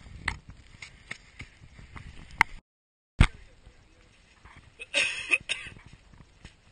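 Scattered knocks and rustles of clothing and gear against a body-worn GoPro as the wearer moves. The sound cuts out completely for about half a second, comes back on a sharp knock, and a burst of rustling follows near the end.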